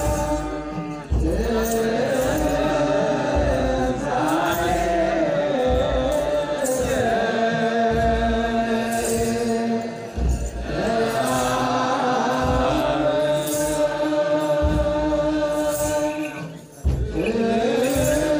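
Ethiopian Orthodox mahlet chant: a group of men chanting together in long, drawn-out held notes that slowly glide in pitch, breaking off briefly about a second in, near the middle and again near the end.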